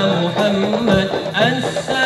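Arabic devotional song (sholawat) performance between sung lines: a sustained melodic line over a low drone, with a run of hand-drum strikes in the middle and a new melodic phrase starting near the end.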